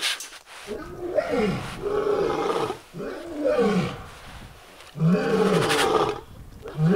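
A big cat roaring in a series of calls, about one every two seconds, each rising and falling in pitch.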